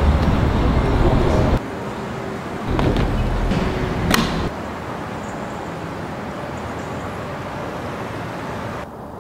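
Noisy ambience with a low rumble, like passing traffic, heavier for the first second and a half and again around three to four seconds. A single sharp click comes about four seconds in, then a steadier, quieter hiss. No music yet.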